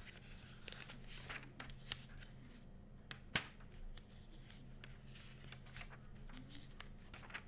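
Paper pages of a textbook being leafed through, soft rustling broken by a few sharp page flicks, over a faint steady low hum.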